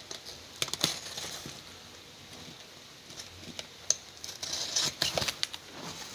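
Cardboard box and packaging being opened and handled by hand: scattered clicks, taps and rustling, busiest near the end.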